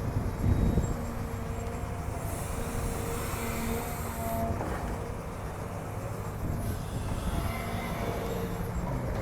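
Hydraulic excavator at work: diesel engine running under load with steady droning tones, and a hiss of higher noise that comes and goes twice.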